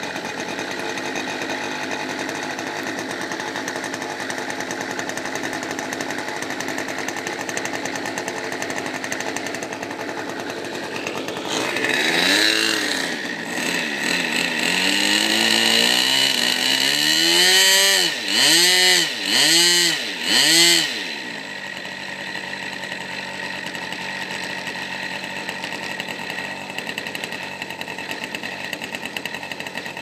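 Seagull 40 RC model plane's small two-stroke glow engine idling on the ground. About twelve seconds in it is revved up, then blipped three times in quick succession, and it settles back to a steady idle.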